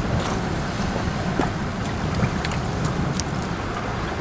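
Steady low rumble of wind and sea at the shoreline, with a few faint knocks.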